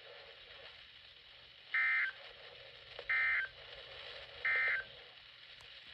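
Emergency Alert System end-of-message signal: three short bursts of SAME digital data tones, a rapid warbling buzz, each about a third of a second long and spaced about a second and a half apart. They mark the end of the alert.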